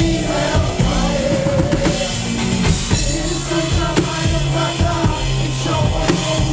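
Live concert music from a band, with a drum kit beat.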